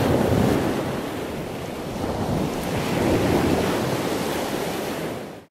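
Ocean surf: a steady rush of waves that swells twice and cuts off suddenly near the end.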